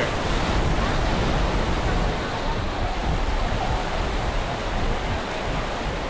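Steady rush of ocean surf, with wind buffeting the microphone as a low rumble.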